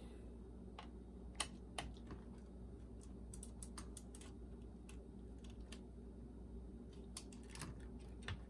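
Scattered light clicks and ticks of a screwdriver and small parts being handled while screws are taken out of a boombox's cassette mechanism, with a quick run of clicks around three to four seconds in, over a faint steady low hum.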